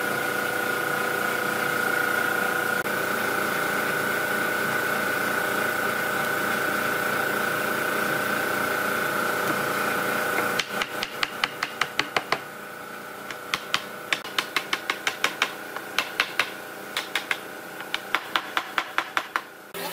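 A machine runs steadily with a high whine for about ten seconds, then cuts off suddenly. A long series of sharp knocks or taps on wood follows, several a second in quick runs.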